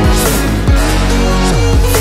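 Background music: an electronic track with steady pitched chords and deep bass notes that slide down in pitch every second or so.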